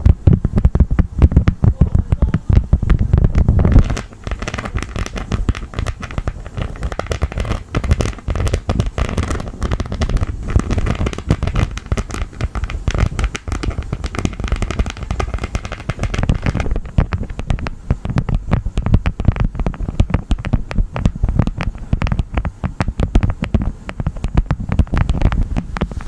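Honeycomb crunched and squeezed close to the microphone: a dense, rapid crackling of waxy clicks, with a heavier low rumble in the first few seconds and again in the last third.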